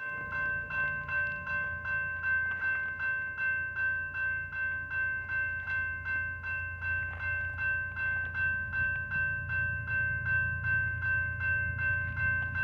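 Railroad grade-crossing bell ringing at an even pace, about two and a half strikes a second. Under it, the low rumble of an approaching BNSF freight train's diesel locomotives grows louder in the second half.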